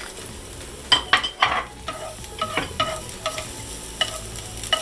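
Minced garlic sizzling in hot cooking oil in a pan, while a spatula stirs it and scrapes and knocks against the pan, most busily about a second in.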